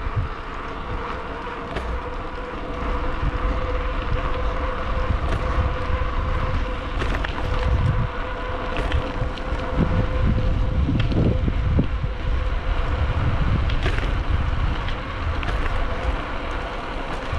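Wind buffeting the microphone of a handlebar-mounted camera on a bicycle riding down a smooth concrete path, over the steady rolling of the tyres, with a faint steady hum and a few light ticks and rattles.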